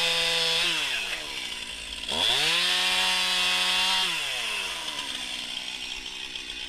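Chainsaw engine held at full revs, then dropping back toward idle about half a second in. It is revved up again about two seconds in, held for about two seconds, and let fall back to a low idle.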